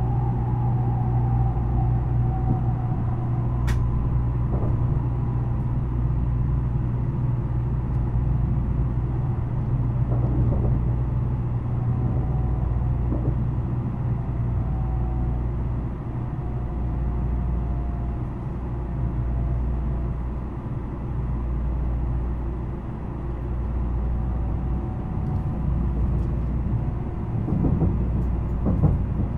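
Interior running noise of an N700 series type 5000 Shinkansen motor car: a steady low rumble from the bogies and rails. Faint traction-inverter tones fall in pitch as the train slows. There is one sharp click about four seconds in.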